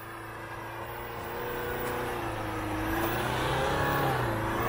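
Mitsubishi L200 pickup's engine revving hard under load as it churns up a deep-snow slope with its wheels spinning and throwing snow. The pitch rises and falls, and it grows steadily louder as the truck comes closer.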